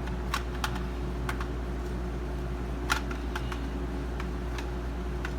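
Light, irregular clicks of a plastic toy gun being handled, a part wiggled to check whether it is loose, about eight in all over a steady low hum.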